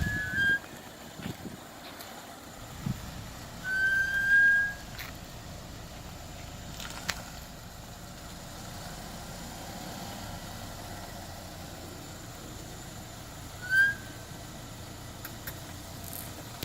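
Front disc brakes of a 2007 Chevrolet Equinox squealing as they are applied while reversing: three short high-pitched squeals, the longest and loudest about four seconds in and rising slightly in pitch, the last one brief, near the end. The squeal comes only in reverse, on new front pads and rotors fitted about a month earlier.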